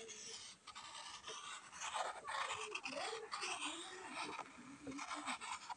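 A stick of chalk scraping across a chalkboard in quick repeated strokes, making a dry scratching sound that comes and goes with each stroke.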